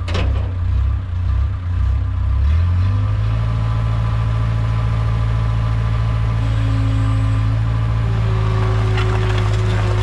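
Case 410 skid steer's diesel engine running unevenly just after starting, then settling into a steady idle about three seconds in. A sharp knock is heard right at the start.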